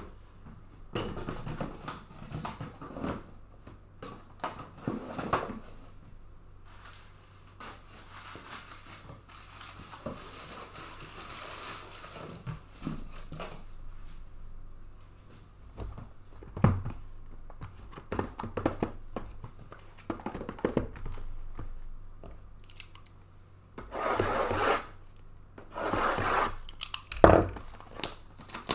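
Card-box packaging being torn open and crinkled by hand, in irregular rustles with sharp knocks as boxes are handled on the table. The longest, loudest tearing comes near the end.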